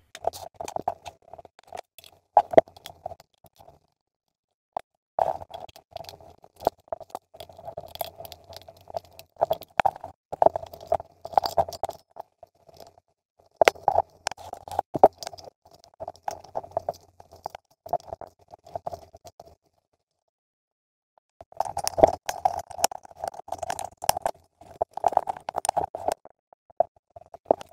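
Hands handling the plastic case of an automatic blood pressure monitor as it is taken apart: AA batteries coming out and the case being opened, giving irregular small clicks, knocks and scraping, with two short pauses.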